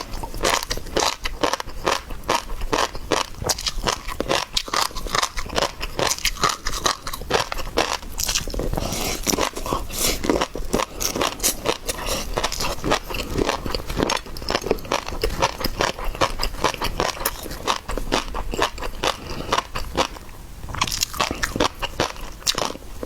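Close-miked eating sounds: rapid, wet crunching and chewing of seafood, with a brief pause near the end.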